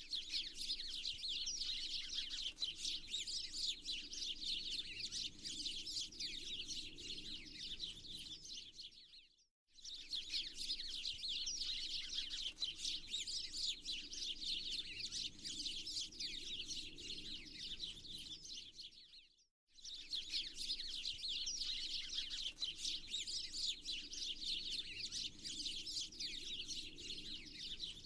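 A dense chorus of many small birds chirping and twittering, with a faint low background hum beneath. It drops out briefly twice, about ten seconds apart, and starts again the same way each time, as a looped ambience track does.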